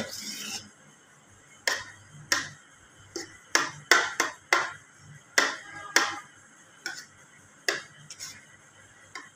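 Spoon clinking against a plate as it stirs yogurt raita: about a dozen short, irregular clinks.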